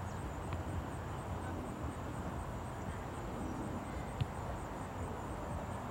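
Steady outdoor background noise with a low rumble, and one short sharp knock about four seconds in.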